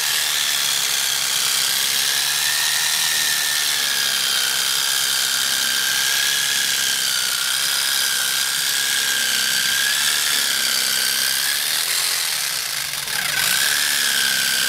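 Small handheld electric saw running with a steady high whine as its blade cuts along a whole hog's rib bones. The pitch wavers a little with the load, and the saw eases off briefly near the end before picking up again.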